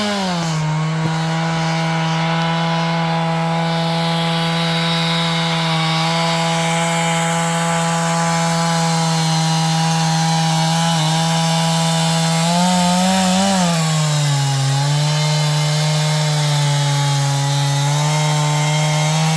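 Sawmill engine running steadily under load as the saw cuts through a log, milling it into lumber. The pitch drops as the cut bites just after the start, rises briefly around 13 seconds, then sags again and recovers.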